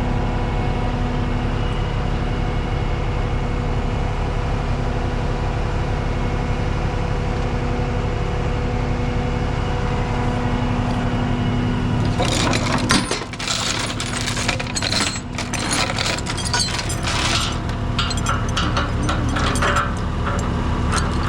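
Diesel engine idling steadily; about twelve seconds in, rapid irregular metallic clinking and clanking starts over it and keeps on.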